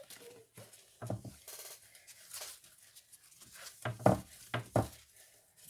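Kitchen roll rubbing across a craft mat as it is wiped clean, with a few short knocks of things being handled or set down, the loudest about four seconds in.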